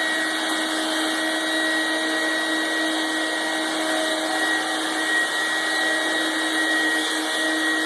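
Vacuum cleaner running steadily, its motor making a constant hum with a high whine over the rush of air.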